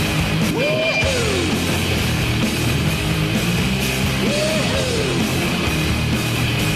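Hard-rock hockey goal song with electric guitar, a gliding tone that rises and falls recurring about every three and a half seconds.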